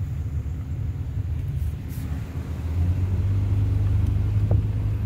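Low rumble of a car driving along, with road and engine noise heard from inside the car, growing a little louder about three seconds in.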